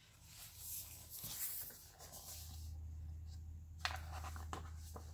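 Paper pages of a hardcover picture book rustling and sliding as they are turned and handled, with a sharp tap about four seconds in.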